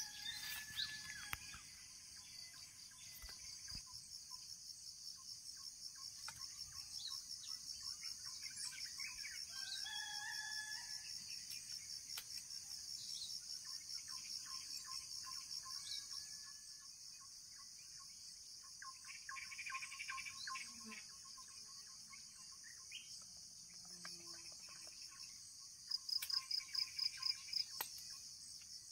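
Outdoor countryside ambience: a steady high-pitched insect drone, with scattered bird chirps and calls through it. Near the end the insects swell into a louder bout of rapid pulsing.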